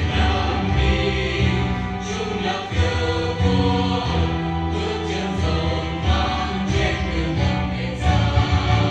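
A choir singing with instrumental accompaniment.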